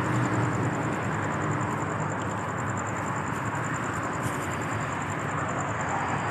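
Steady rumble of vehicle noise with a low engine hum that fades over the first couple of seconds.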